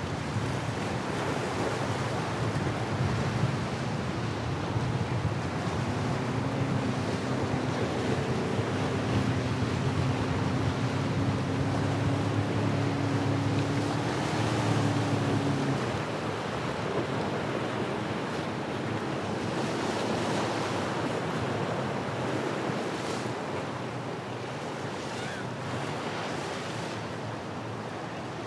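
Wind buffeting the microphone over crashing surf. From about six seconds in, a boat engine drones with a slowly rising pitch, then cuts off abruptly about halfway through.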